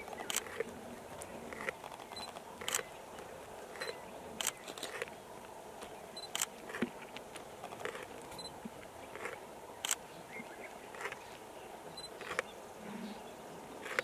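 Camera shutters clicking, sharp and irregular, about one click a second with some quick pairs, and a few brief high beeps in between.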